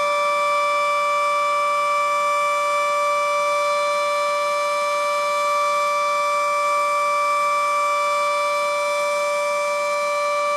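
Federal Sign & Signal Model 7B outdoor warning siren sounding its steady alert signal: one loud, unchanging tone held throughout, part of a five-minute alert test cycle.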